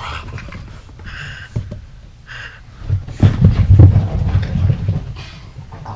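Dogs playing, breathing hard in short noisy gusts. From about three seconds in, heavy low thudding and rumbling as a dog runs close by across the carpet; this is the loudest part.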